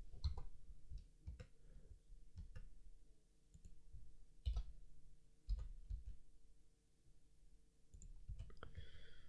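Faint, irregular clicks of a computer mouse and keyboard keys being pressed, about a dozen spread through the stretch, over a faint steady hum.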